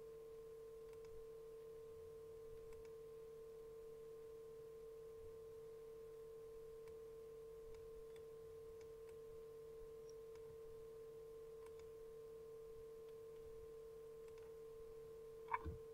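Near silence with a faint, steady electrical hum-like tone that holds one pitch throughout, and a few very faint ticks.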